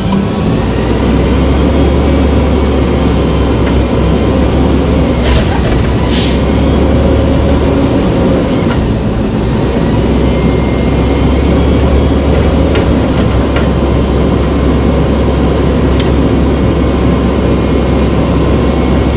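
Front-loader garbage truck's diesel engine running steadily to drive the hydraulic lift arms as the forks swing up over the cab and come back down. A few sharp metal clanks, the loudest about six seconds in.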